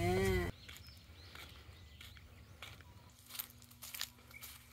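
A woman's voice for the first half second, then quiet outdoor ambience: a faint steady low hum and a few short, faint high chirps scattered through.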